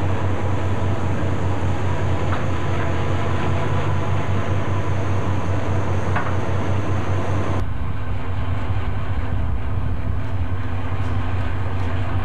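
Tugboat's Nohab Polar diesel engine running steadily while towing on a taut line: an even low drone. A rushing wind and water noise over it drops away suddenly about two-thirds of the way through, leaving the engine drone.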